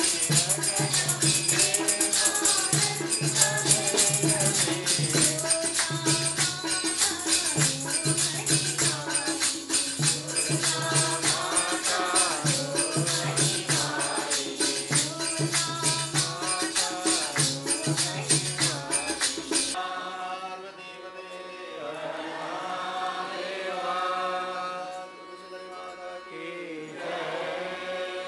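Devotional singing and chanting, with fast, steady metallic jingling. The jingling stops about twenty seconds in, leaving the chanting voices, now quieter.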